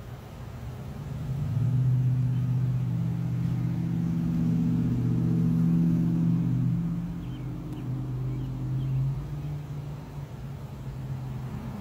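A motor vehicle's engine running, a low hum that swells about a second and a half in, stays strong for several seconds, then eases off.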